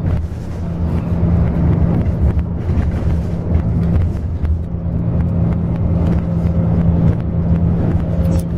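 Inside a moving route bus: the engine drones steadily, with road rumble and a few faint cabin rattles.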